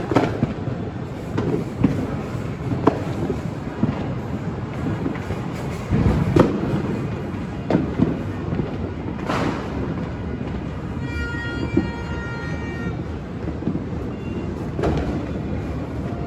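New Year fireworks and firecrackers banging at irregular intervals over a continuous rumbling crackle. About two-thirds of the way through, a horn sounds a steady pitched note for about two seconds.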